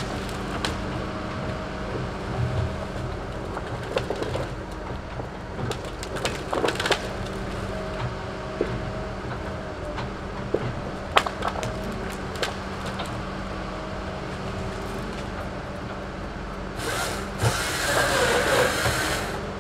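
Tigercat log loader's diesel engine running steadily as its grapple handles tree-length pine stems, with scattered knocks and cracks of logs striking each other and a louder noisy stretch of about two seconds near the end.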